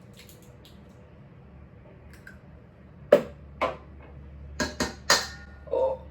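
Eggs being cracked on the rim of a mixing bowl: after a quiet start, a run of sharp cracks and knocks in the second half, ending with a duller knock.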